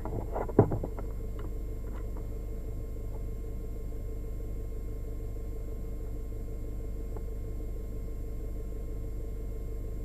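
Steady low hum with a faint constant whine. A few short knocks come in the first second.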